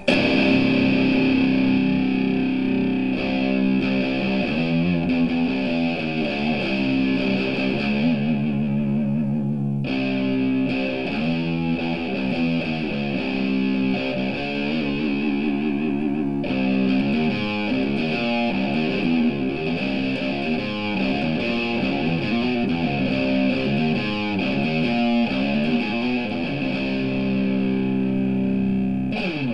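Distorted electric guitar tuned to drop B playing a heavy riff: low chords ring out for a second or more, then give way to quick runs of picked notes, back and forth several times.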